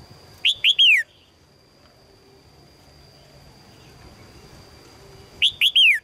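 Red-whiskered bulbul calling: two short phrases of three quick whistled notes, each note falling in pitch, about five seconds apart.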